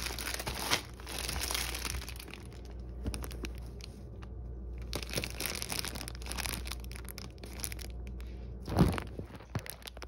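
Plastic bread bag of bagel thins crinkling as it is handled and turned over, with one louder thump near the end.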